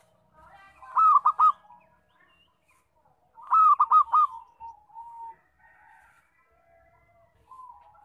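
Zebra dove (perkutut) cooing loudly: two phrases, about a second in and about three and a half seconds in, each a quick run of about four notes, the second followed by a few softer drawn-out notes.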